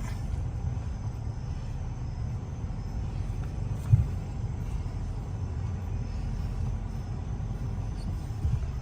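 Vehicle engine idling as a low, steady rumble, with a single knock about four seconds in.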